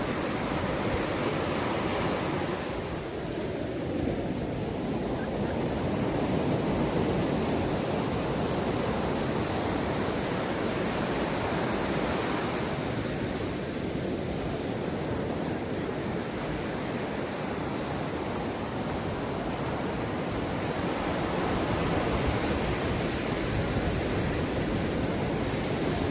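Ocean surf washing onto a beach: a continuous rush of breaking waves that swells and eases every several seconds.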